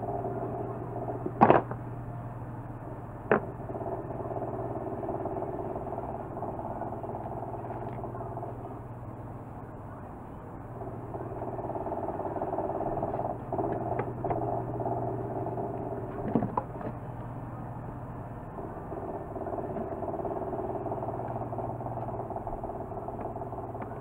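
Plastic and metal parts of a disassembled hair dryer clicking and knocking as they are handled, with one sharp knock about a second and a half in and a few lighter clicks later on. Under it runs a steady low drone that slowly swells and fades.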